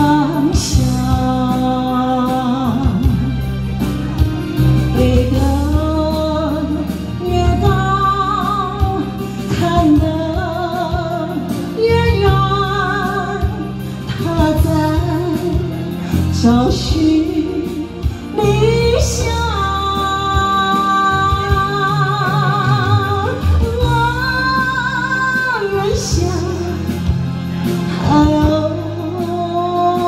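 A woman singing through a handheld microphone over backing music, holding long notes with vibrato.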